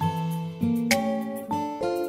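Background music: a melody of plucked acoustic guitar notes, a new note about every half second.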